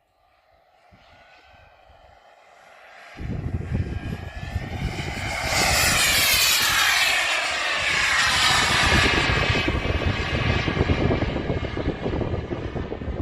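Turbine engine of a radio-controlled model jet whining as the plane flies past, growing louder to a peak about six seconds in, then falling in pitch as it moves away. Wind buffets the microphone from about three seconds in.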